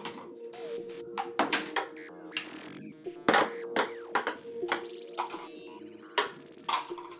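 Ping-pong balls bouncing off wooden boards and walls: a rapid, irregular run of sharp light clicks, over a faint steady musical tone.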